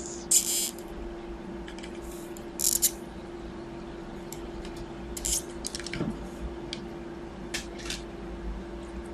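Soldering iron working the terminals of a switch, with several short sizzling hisses of melting solder and flux, the first about half a second in being the loudest, over a steady hum.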